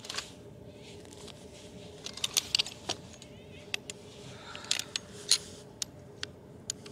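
Gear being handled: irregular light clicks and metallic clinks in two clusters, the loudest about five seconds in, over a faint steady hum.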